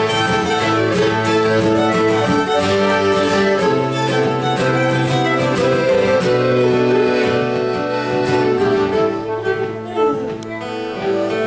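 Folk band instrumental break: fiddle playing the tune over strummed acoustic guitar, with melodeon chords held underneath. The playing thins out briefly near the end.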